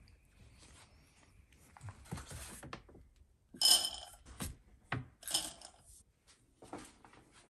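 Dry dog kibble scooped and poured into a bowl. The pieces clatter in a loud burst about three and a half seconds in, with a few sharp clicks and a second, smaller pour about two seconds later. Rustling of the scoop in the food comes before.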